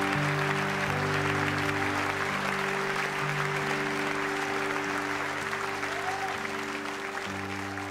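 End of a live worship song recording: an audience applauding over long held chords, the level easing down near the end.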